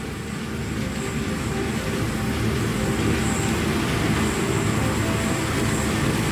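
Bizon Z058 Rekord combine harvester running, its six-cylinder diesel engine giving a steady rumble with a thin high whine above it. It grows louder over the first few seconds, then holds steady.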